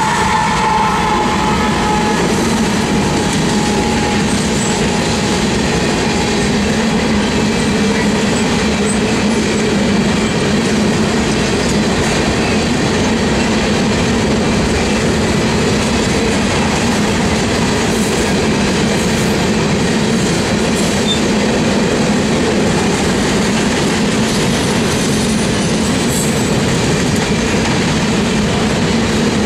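A freight train's covered hopper cars rolling past: a steady rumble of steel wheels on rail with clicking over the rail joints. A high tone from the departing locomotives sags slightly and fades out in the first few seconds.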